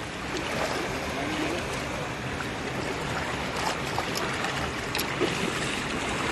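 Legs wading through shallow water, a steady sloshing and splashing with small scattered splashes.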